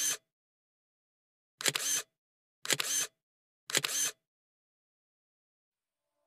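Short click-like sound effects, each a quick double click about half a second long: the end of one right at the start, then three more about a second apart, with dead silence between them.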